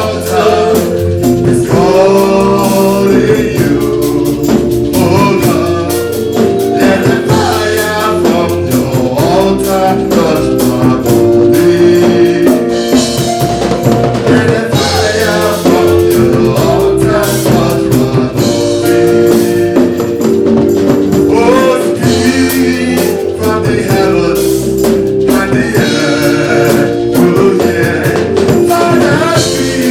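Live gospel praise music: singing over band accompaniment with drums.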